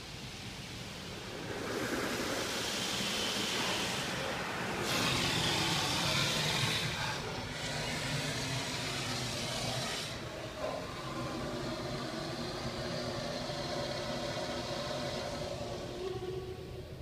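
Touchless car wash machinery heard from inside the car: high-pressure water spray rushing and hissing over the body and glass, loudest in the middle. In the second half a steady machine hum comes in, and a rising whine starts near the end.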